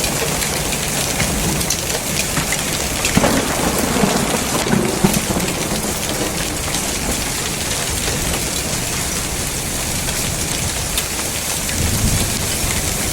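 Hail and rain falling hard in heavy wind: a loud, dense, steady rush with many sharp ticks of hailstones striking, over a low rumble, a little louder about three to five seconds in.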